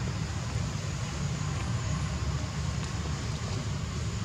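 Steady low rumble with an even hiss over it. No monkey calls and no distinct knocks are heard.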